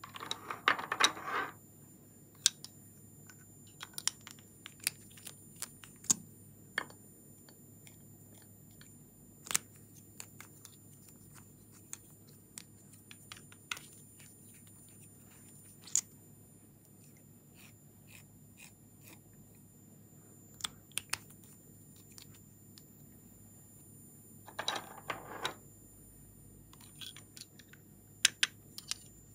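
Scattered clicks and taps of plastic lip gloss tubes being picked up and handled. There are two denser clattering stretches about a second long, one near the start and one about 25 seconds in.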